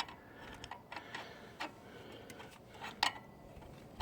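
A few sharp, irregular metal clicks and ticks of hand tools on the fittings as the exhaust back pressure tube on a 1995 Ford Powerstroke diesel is tightened to its bracket, with the loudest click about three seconds in.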